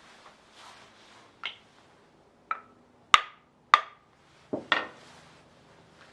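Hammer tapping a Japanese plane (kanna) to set its blade: six sharp knocks, each with a short ring, the last two in quick succession.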